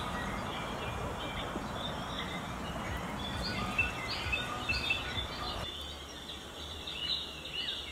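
Small birds chirping in short repeated calls over a steady background hiss of outdoor noise, which drops noticeably about three-quarters of the way through.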